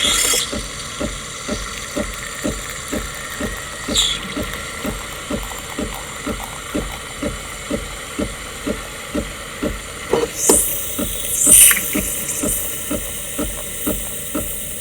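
Coffee machine running, its pump pulsing evenly about twice a second, with a short hiss about four seconds in and louder hissing bursts about two-thirds of the way through.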